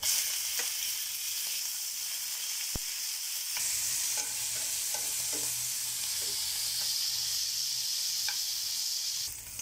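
Diced chicken frying in hot oil in a frying pan, a steady sizzle, while a spatula stirs it with a few light scrapes and clicks against the pan.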